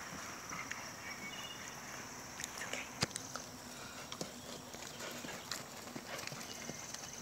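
Hoofbeats of a grey thoroughbred on grass, first at a canter and then slowing to a trot, as irregular soft thuds with one sharper knock about three seconds in.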